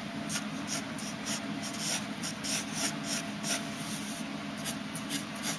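Graphite pencil scratching on paper in short, light sketching strokes, about three or four a second, as curved lines are drawn.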